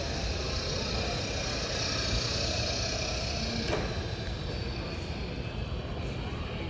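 Steady airport terminal concourse ambience: an even wash of hall noise with no clear voices, and one short knock a little under four seconds in.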